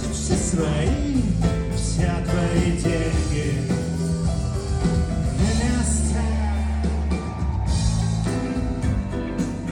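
A song with a singer over a band, with a steady bass line underneath.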